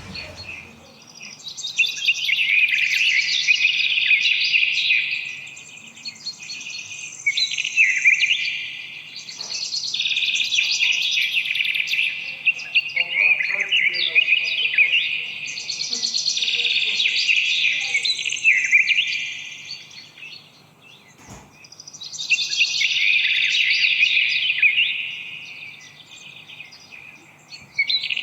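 Songbird chirping and trilling in long, busy phrases of several seconds, with short pauses between them.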